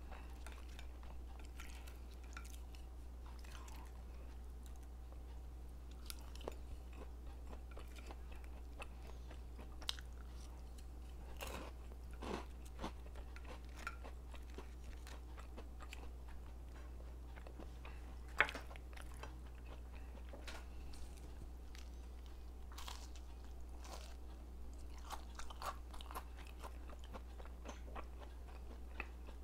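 A person chewing and biting food close to the microphone, with scattered short crunches and clicks, the sharpest about 18 seconds in, over a steady low hum.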